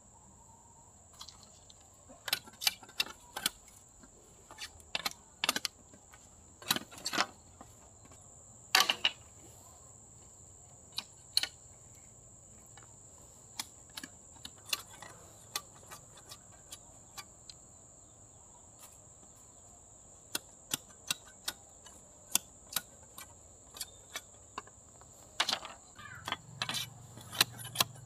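Irregular sharp clicks and light knocks, one or a few at a time with the loudest about nine seconds in, over a steady high-pitched insect drone.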